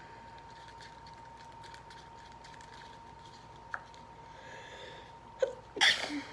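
A person sneezing once near the end, with a short sharp sound just before it. The rest is quiet apart from a faint steady hum.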